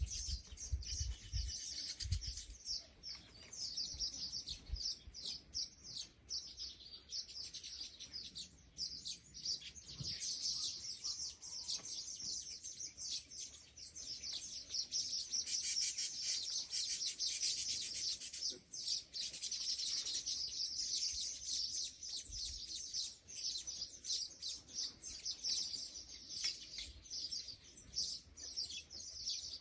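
Small birds chirping rapidly and continuously in a dense, high-pitched chorus, with a few low thumps in the first couple of seconds.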